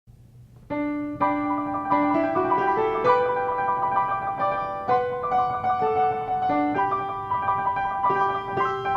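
Piano music, a tune of single notes and chords that begins under a second in.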